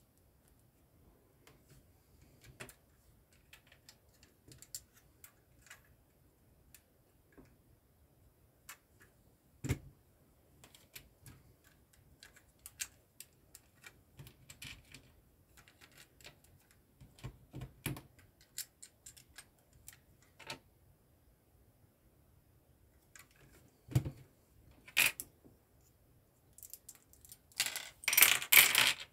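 Plastic LEGO bricks clicking and tapping as they are handled and pressed together, in scattered single clicks. Near the end comes a longer clatter of loose plastic pieces rattling together.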